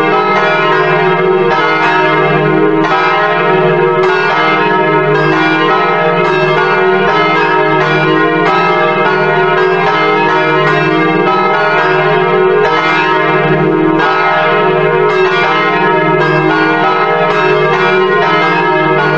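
Church bells pealing, many bells struck in quick succession and ringing over one another.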